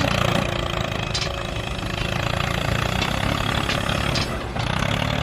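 Small engine running steadily, its level rising and falling slightly.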